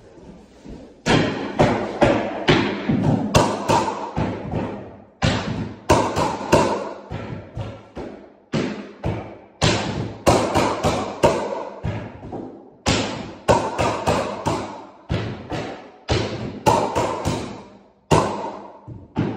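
Mallet striking the plunger of a pneumatic flooring nailer, each blow driving a fastener into hardwood floorboards. The bangs come in runs of about two a second, with short pauses between runs.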